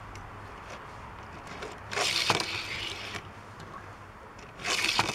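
A small toy truck with metal body and plastic base rolled along plastic Hot Wheels track twice: two short rolling rushes of its wheels, each with a sharp knock.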